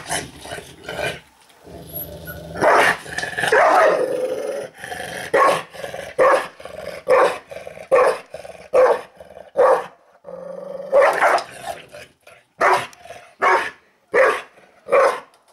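Golden retriever growling and giving short barks over its food bowl while eating, angry and aggressive. A longer growl comes a couple of seconds in and again partway through, and between them it barks in a run of short barks about one a second.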